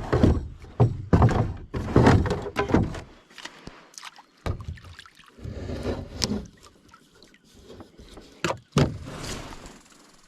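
Irregular thumps and knocks in a small boat as a freshly caught pike is handled. Several come close together in the first three seconds, and a sharp, louder one comes near the end.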